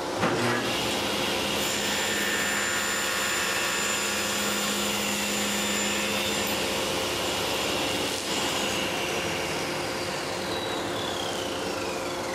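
Table saw with a 10-inch AlumiCut aluminum-cutting blade running steadily as a 6061 aluminum blank is cross-cut on a sled. In the last few seconds a whine falls steadily in pitch as the blade spins down.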